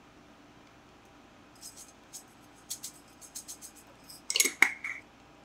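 Sesame seeds shaken from a glass spice jar onto a bowl of food: a run of light, irregular rattling taps starting about a second and a half in, with a louder clinking cluster and a short glassy ring about four and a half seconds in.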